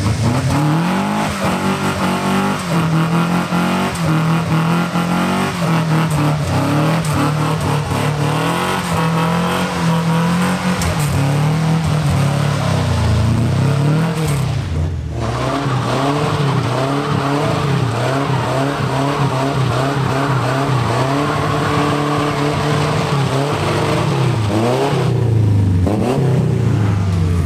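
Lowered compact pickup truck engines revving up and down again and again as the trucks drive slowly past one after another.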